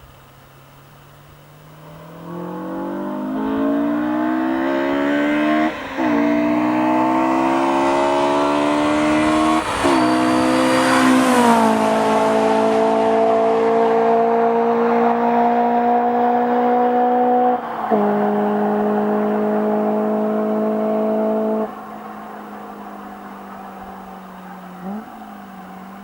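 Honda S2000's 2.0-litre four-cylinder F20C engine, breathing through a decat test pipe and a straight-through 70 mm Milltek single-exit exhaust, accelerating hard past the listener. The pitch climbs through two quick upshifts, drops sharply as the car goes by, then holds steady before a lower gear change. The engine note falls away when the throttle is lifted, with a short blip near the end.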